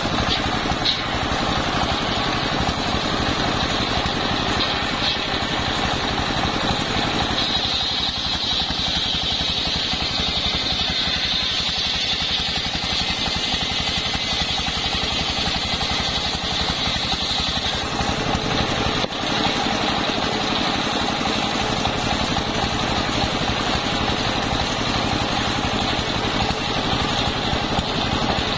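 Large table circular saw with an 85 cm blade ripping a sengon plank, over the steady running of the stationary engine that drives it by belt. The blade's high cutting noise fades about two-thirds of the way through, leaving mostly the engine.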